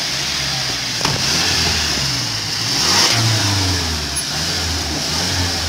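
Police patrol SUV engine running and accelerating as it pulls away, its pitch rising about three seconds in, with a single sharp click about a second in.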